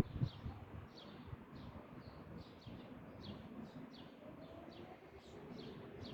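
A small bird chirping over and over, short falling chirps about two a second, over a low outdoor rumble. Two low thumps come right at the start, and a faint steady hum sets in about four seconds in.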